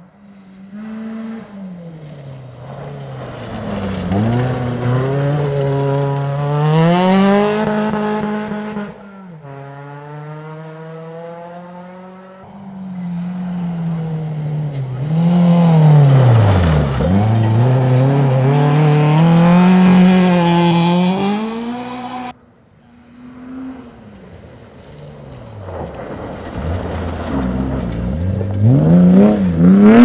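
Rally cars passing one after another at speed, each engine revving up and dropping back through gear changes, its pitch falling sharply as it goes by. The sound switches abruptly to a different car about nine and twenty-two seconds in.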